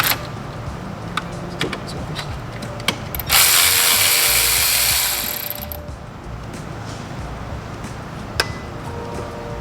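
Ratchet wrench clicking as the valve cover bolts on a KA24 engine are loosened, with scattered single clicks and a loud, continuous rasp of fast ratcheting lasting about two seconds near the middle.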